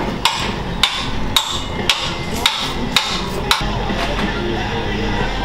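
Hammer striking a brass drift punch held against a race truck's differential housing: about seven sharp metal taps, roughly two a second, stopping about three and a half seconds in. The differential is a clutch-pack limited-slip unit being rebuilt because it was slipping.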